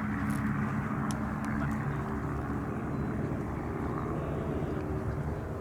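Formation of single-engine propeller aerobatic aircraft flying by in a turn, their piston engines droning steadily.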